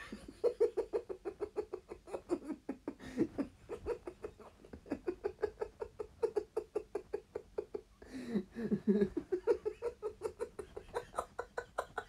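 A person laughing in rapid, rhythmic bursts of short pulses, about six a second, with a brief pause about four seconds in.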